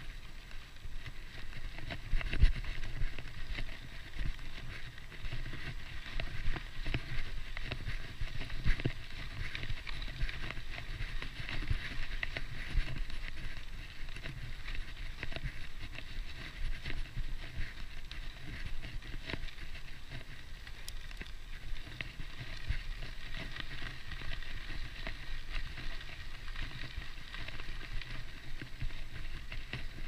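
Mountain bike rolling on a gravel dirt path: tyres crunching and the bike rattling over small bumps, mixed with the ticking buzz of its Hope Pro 4 rear hub.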